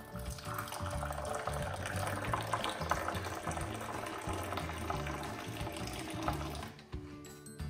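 Tea poured in a thin stream into a glass cup, a steady splashing pour that fills the cup and stops near the end. Background music with a steady bass beat plays under it.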